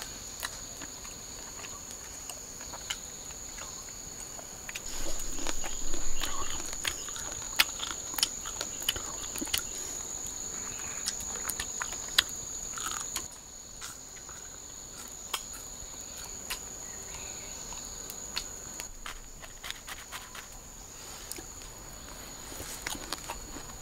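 Forest insects droning steadily with a high-pitched whine, over scattered sharp clicks and rustles that are louder for a stretch in the first half.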